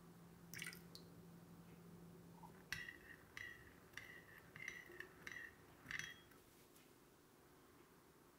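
Metal spoon clinking against the side of a ceramic bowl while stirring sugar into warm water: one clink about half a second in, then a run of about seven light, ringing clinks over some three seconds.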